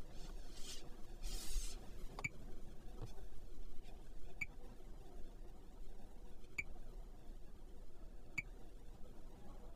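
Four short, sharp ticks about two seconds apart as a finger taps the MG7's infotainment touchscreen, over a low steady cabin hum, with a brief rustle near the start.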